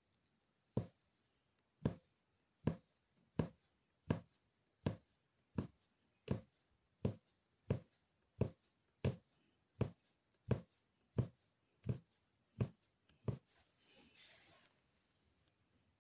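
Punch needle (magic needle) punching yarn through taut fabric on a frame: a steady series of sharp pops, about one every 0.7 seconds, stopping about 13 seconds in.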